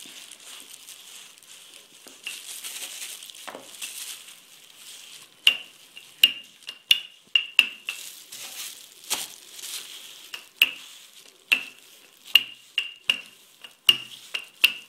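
A wooden rolling pin rolling out bread dough on a floured plastic cutting board: a soft rubbing hiss at first, then from about five seconds in a string of sharp, irregular clacks from the pin against the board.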